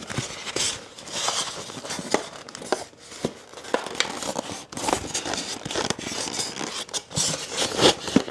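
Packaging rustling and crinkling, broken by irregular clicks and knocks, as the RC truck is unpacked from its box.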